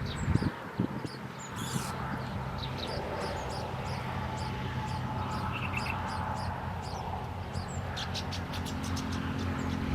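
Small birds chirping in short, high, scattered notes, with a quick run of rapid chirps near the end, over a steady low rumble.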